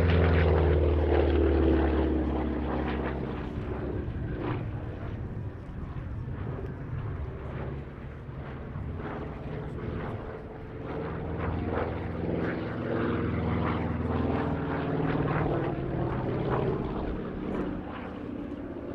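Republic P-47 Thunderbolt's Pratt & Whitney R-2800 Double Wasp radial piston engine running during an aerobatic display. It is loudest at first as the aircraft passes close, fades, then swells again as it comes round, with the engine note sliding in pitch as it moves.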